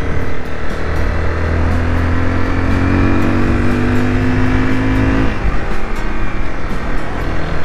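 Honda CBR 250R's single-cylinder engine running steadily while riding, under a constant rush of noise. A steadier set of held tones swells in for about three seconds in the middle, then drops away.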